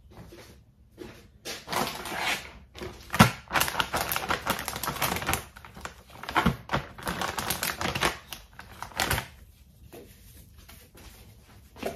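Phone chargers and cables clicking and rattling together as they are handled and gathered up: a dense, irregular run of small hard clicks that stops about nine seconds in, with one more click near the end.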